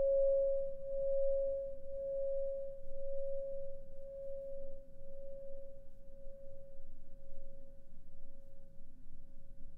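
Singing bowl ringing after a strike: one steady tone with a fainter higher overtone, pulsing gently as it slowly fades away. It is the bell that marks the start of silent meditation.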